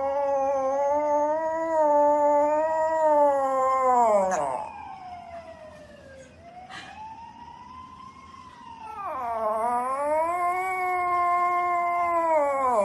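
A pet animal's long, drawn-out howls. Two loud calls with slowly wavering pitch: the first lasts about four and a half seconds, then a softer call rises and falls, and a second loud call starts low and swoops up, running about four seconds.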